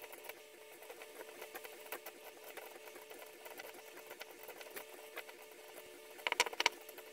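Faint, rapid light ticking of thin enamelled copper magnet wire being hand-wound onto a bolt as it is drawn off a salvaged motor coil turning on its screw. A short burst of three or four louder clicks comes near the end.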